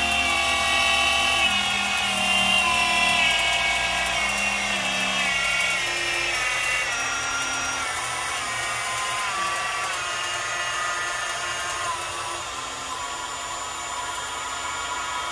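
Water-cooled 2.2 kW VFD spindle of a Grizzly G0704 CNC mill running at high speed near 7,700 rpm: a whine of several tones that slowly falls in pitch and grows quieter as the spindle is brought down in speed.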